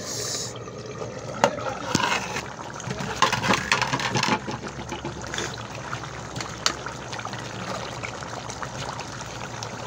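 Thick chicken curry masala bubbling in an open pot on the stove, with many small pops and crackles and a slotted spoon scraping through it now and then. Its water has cooked off and the oil is separating out of the masala.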